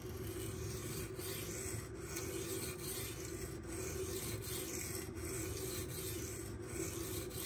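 A Magnacut steel knife blade (Kershaw Bel Air) being stroked back and forth on a coarse 240-grit silicon carbide whetstone. It makes a steady, even scraping, with a short break about every three quarters of a second as each stroke turns. This is the first, coarsest stone of the progression, grinding a fresh edge.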